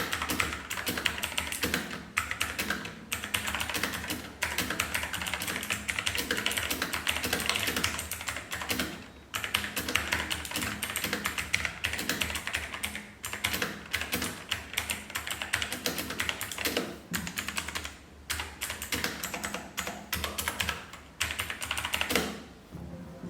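Fast continuous typing on a budget mechanical keyboard with clicky blue switches, a dense clatter of loud key clicks with a few short pauses. It stops near the end.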